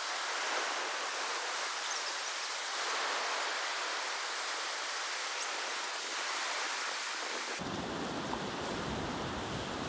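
Steady hiss of ocean surf breaking on a rocky shore, even and unbroken. About three-quarters of the way through, a low rumble joins it.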